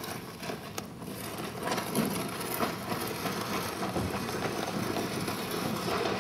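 A rope-bound, sheet-wrapped body dragged across a dry dirt street: a continuous rough scraping of cloth over dirt and grit.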